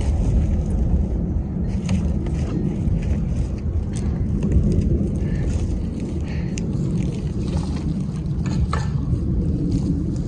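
Wind buffeting the microphone: a steady low rumble, with a few light knocks scattered through it.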